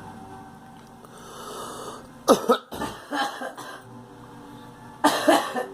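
A girl coughing in fits: two hard coughs a little over two seconds in, a few weaker ones just after, and another pair of hard coughs near the end.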